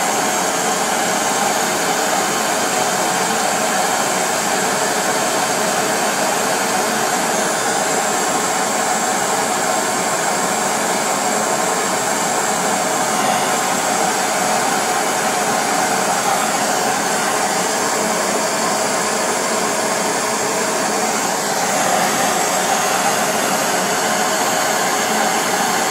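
Hand-held gas brazing torch flame burning with a steady hiss as it heats a copper pipe joint to brazing temperature while filler rod is melted in.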